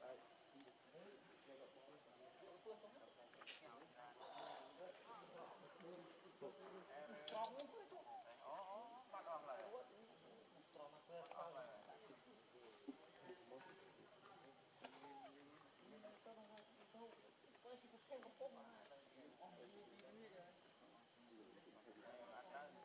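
Faint, steady insect chorus: a high-pitched, fast-pulsing trill with a steadier whine above it.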